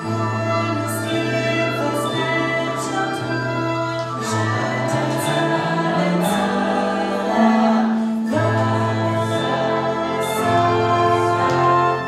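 A song from a live stage musical: a female solo voice singing a slow, held melody over instrumental accompaniment with a stepping bass line.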